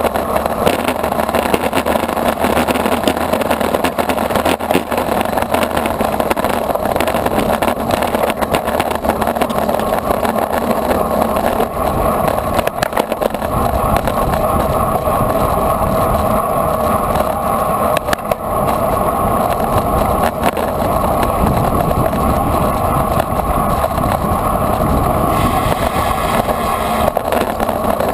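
Steady rush of wind against the microphone of a camera on a racing bicycle at speed, mixed with tyre and road noise. The low rumble gets heavier about halfway through.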